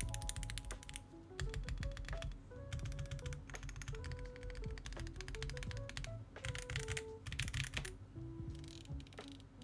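Typing on a Zoom TKL Dyna mechanical keyboard built with Akko Dracula switches, transparent keycaps, a polycarbonate plate, a cork plate dampener and a 1.2 mm flex-cut PCB in a silica gel mount. Keys clack in quick runs, with a denser flurry a little past halfway, over background music.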